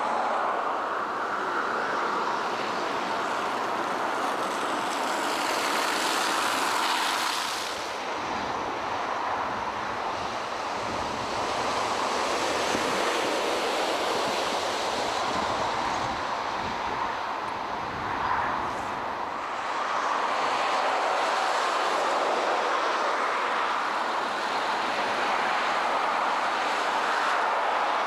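Steady rushing noise of road traffic and wind, shifting in tone a few times.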